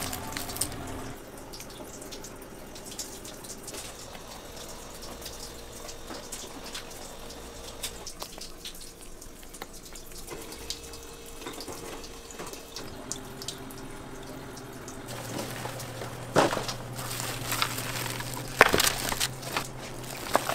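Kitchen background noise: a steady hiss and low hum, with scattered clicks and clatter in the last few seconds.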